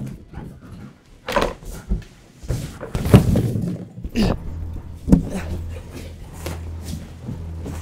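Inflated latex balloons being batted and bumped by a German Shepherd jumping among them: a handful of hollow thumps a second or so apart, the loudest about three seconds in.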